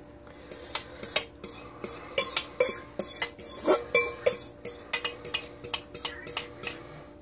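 A spoon scraping and clinking against the inside of a stainless steel mixing bowl, about two to three sharp clinks a second, as thick barbecue sauce is scraped out of the bowl.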